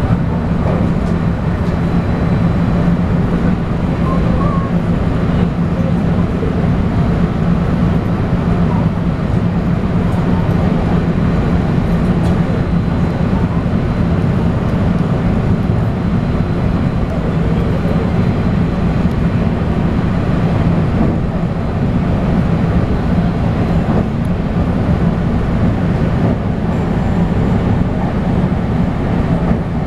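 Steady running noise of a train in motion, heard from inside the carriage: an even low hum and rumble that holds level throughout.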